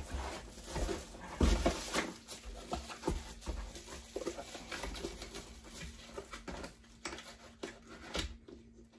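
Cardboard box and bubble-wrap packaging being handled: irregular rustling and crinkling, with a couple of heavier bumps near the start and about a second and a half in, growing quieter toward the end.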